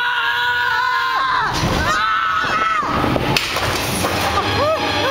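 Coaster riders screaming on the Winjas Force spinning coaster: one long held scream in the first second and another about two seconds in, over the rumble of the car on the track. Near the end a run of short rising-and-falling cries begins.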